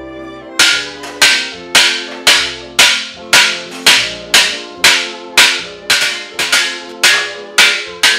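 Background music: sustained string-like tones with a sharp percussive hit on a steady beat, a little under two a second, starting about half a second in.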